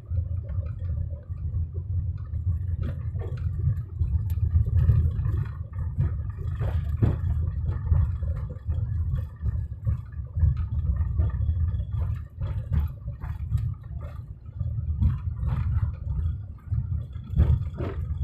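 Car driving slowly over a rough unpaved track: a low, uneven rumble with many small knocks and rattles from the bumps.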